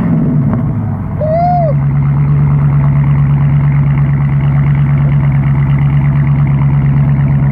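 A very loud car engine and exhaust running steadily at idle right after a rev, with a quick pulsing throb. A man whoops "Woo!" about a second and a half in.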